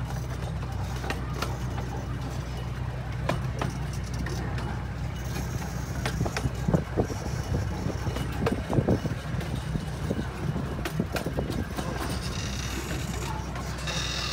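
Miniature park train running along its track, with a steady rumble and scattered clicks and knocks from the wheels on the rails, and wind buffeting the microphone.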